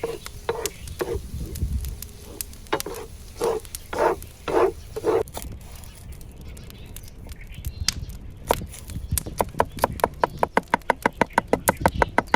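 A run of short animal calls in the first half, then, from about nine seconds in, fast, even knife chopping on a cutting board at about six strokes a second.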